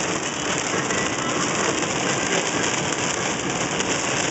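Heavy rain hitting a car's windshield and body, mixed with steady engine and road noise, heard from inside the cabin as a dense, even hiss.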